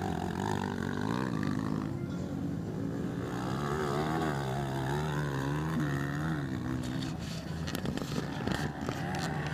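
230 cc motocross bike engine revving up and down as the rider works through the track's bends and bumps, its pitch rising and falling in waves. A few brief crackles come near the end.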